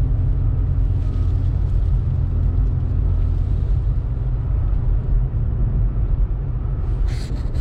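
2018 Honda Civic Turbo Sport hatchback driving on snow-covered roads: a steady low rumble of engine and road noise.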